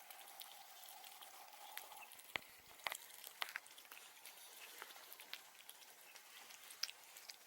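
Faint snoring of an elderly Norwegian Forest Cat: a thin whistling tone for the first two seconds, then a few scattered crackling clicks.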